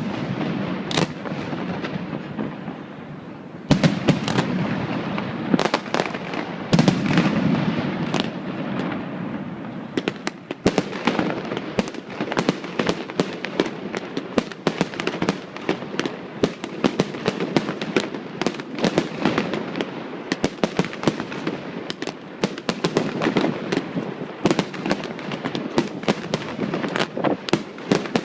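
Fireworks display: a few big shell bursts with long rumbling tails, then from about ten seconds in a dense, rapid string of bangs and crackle.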